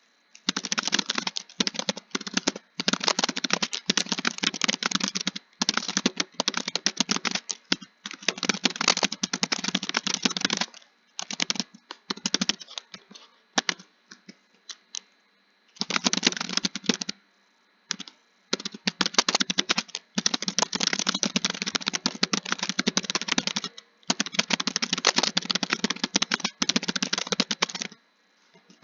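Fast typing on a computer keyboard: long runs of rapid keystroke clicks, broken by a few short pauses and a longer pause of about two seconds near the middle.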